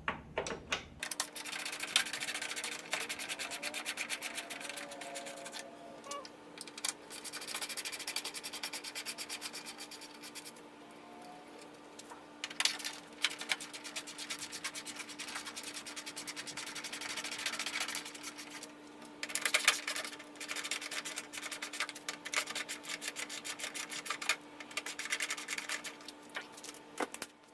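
Ratchet wrench clicking rapidly in repeated bursts with short pauses as 10 mm bolts are backed out, over a steady low hum.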